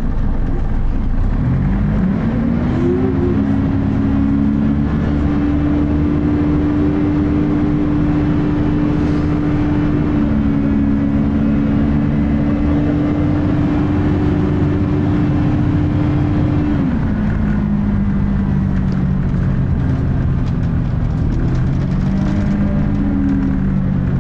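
Volvo B10BLE single-decker bus's six-cylinder diesel engine and cooling fan heard from inside the bus as it pulls away: the engine note rises sharply about a second and a half in, holds high and steady for a long stretch, then drops about two-thirds of the way through as the ZF automatic gearbox changes up, and climbs again near the end. The uploader calls the engine thrashy and the ZF gearbox slipping.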